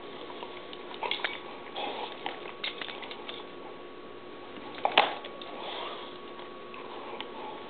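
A dog breathing and snuffling through its nose while tugging on a rubber tug toy, with scattered clicks and scuffs from the toy and a sharp knock about five seconds in.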